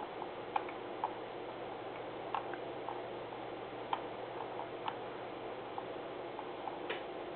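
Light, irregular clicks from a computer mouse as the on-screen document is scrolled, about a dozen spread unevenly over a steady faint hiss of room noise.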